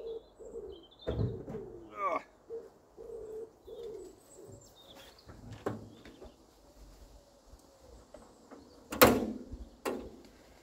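Bonnet of a 1967 MGB being opened and the engine bay handled: scattered light clunks and knocks, with one sharp knock about nine seconds in. Birds call in the background.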